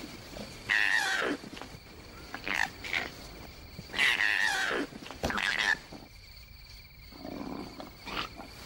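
Male koalas fighting, giving loud harsh screams that fall steeply in pitch, the longest about one second in and about four seconds in, with several shorter cries between and after.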